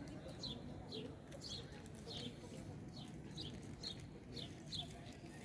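A small bird chirping repeatedly: short, high, falling notes about twice a second, over a faint low background rush.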